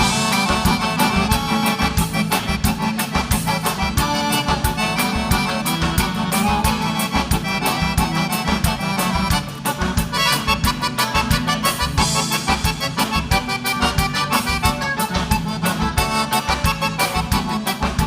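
Live gaúcho dance band playing an instrumental break, with the accordion leading over bass and a steady, even dance beat.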